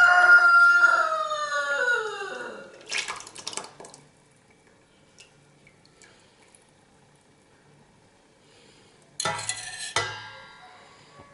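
A rooster crowing once, a long call that falls in pitch at the end. Near the end come two clanks of stainless steel pans knocking together.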